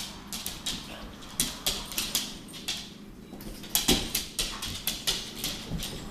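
Two pit bulls playing rough on a tiled floor: irregular sharp clicks and scrabbling from their claws on the tiles as they scuffle, with a heavier knock about four seconds in.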